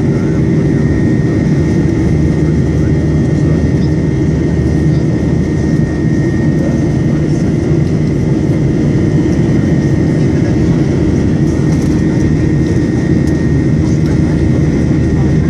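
Boeing 737-800's CFM56-7B jet engines heard from inside the passenger cabin during the climb: a steady roar with a constant high whine over it.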